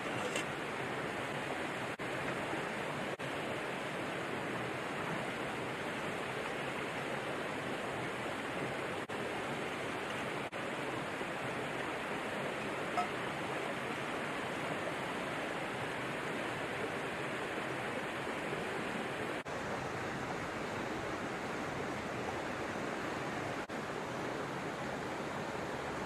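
Mountain stream rushing steadily over rocks, an even hiss of flowing water. One light tap about halfway through.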